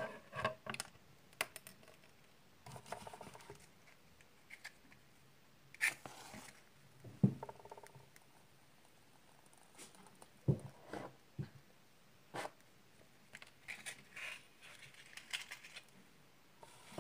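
Scattered small clicks, taps and a few brief scrapes of hands handling matches and small candles, quiet and close.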